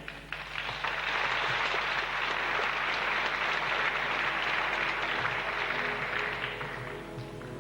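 Audience applauding, a dense, even clatter of clapping that starts just after the orchestra stops and fades out near the end as orchestral music begins again.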